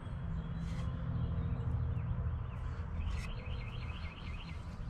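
A songbird's warbling call about three seconds in, its pitch rising and falling rapidly for over a second, over a steady low hum.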